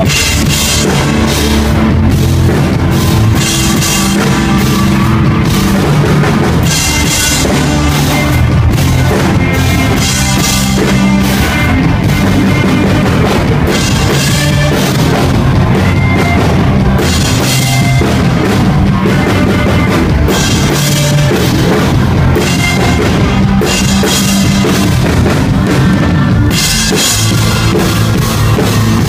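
Rock band playing live at full volume, with the drum kit driving the beat under bass and electric guitar.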